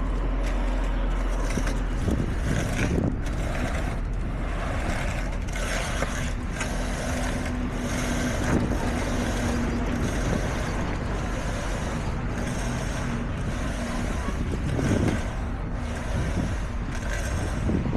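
Heavy diesel construction machinery running steadily, a low engine rumble with a constant hum and occasional clanks.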